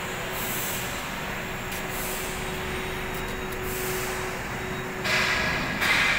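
Steady hum and hiss of coating-plant machinery running, with a faint steady tone underneath. About five seconds in, a louder rushing hiss starts and comes and goes.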